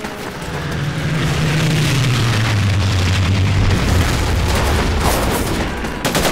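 Drone of a formation of WWII propeller warplanes passing overhead, a low engine hum that drops in pitch as they go over, with a rumbling noise around it.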